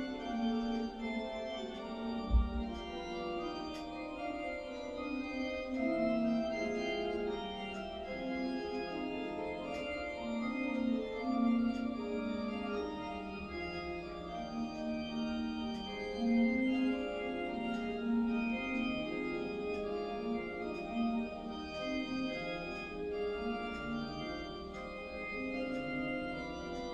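Church organ music with slow, long-held chords, played back through a television's speakers. A single low thump about two seconds in.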